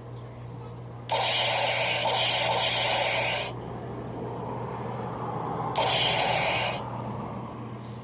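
Toy pistol's electronic sound effect through its small speaker, sounding twice: a longer burst of about two and a half seconds, then a shorter one of about a second.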